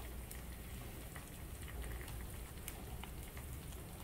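Faint, steady sizzling of hot oil on an electric griddle pan with scattered small crackles and pops, as burger bun halves toast on it.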